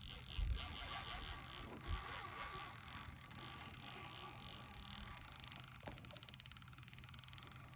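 Spinning reel's drag paying out line to a hooked Chinook salmon: a high whirring buzz that turns into a fast, even run of clicks about two seconds before the end.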